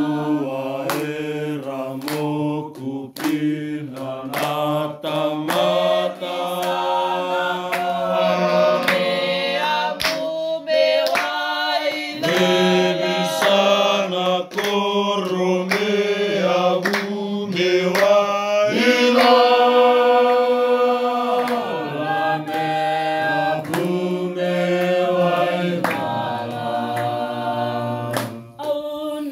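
A mixed group of men and women singing together without instruments, in harmony, holding long notes and moving from chord to chord.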